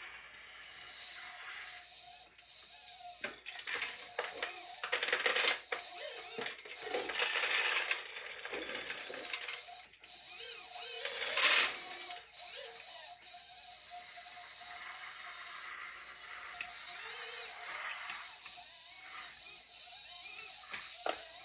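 Hydraulic pump of a 1/14-scale RC excavator whining steadily, with several rattling bursts of loose scooped material, loudest around five, seven and eleven seconds in.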